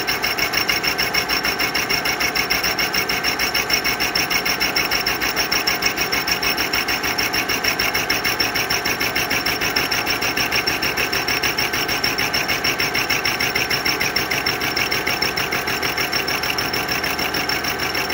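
A hole saw spinning in a CNC-converted lathe, fed automatically into a metal pipe to cut it at an angle. The saw teeth make a steady, very fast chatter with a constant high whine over it.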